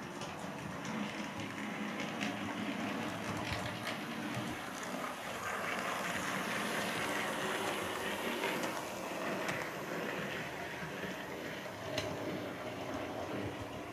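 Model trains running on the layout's track: a steady rumbling whir of motors and wheels on the rails with occasional small clicks. It grows louder in the middle as a model diesel locomotive passes close by.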